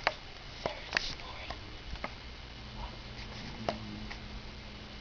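A handful of sharp clicks and taps, with a faint steady low hum starting about halfway through.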